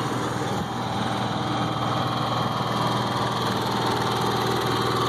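Steady engine hum with no change in pitch: a Ford F-150 pickup running close by, louder than the Honda EU7000is fuel-injected inverter generator running on Eco throttle at about 2,400 rpm.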